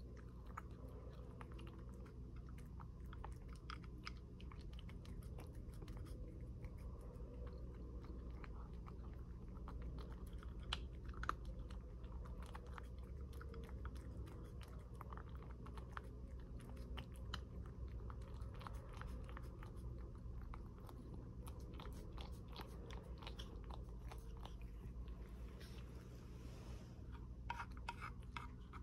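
A cat chewing its food from a dish at close range: a steady run of small, crisp clicks, with a few louder clicks near the end.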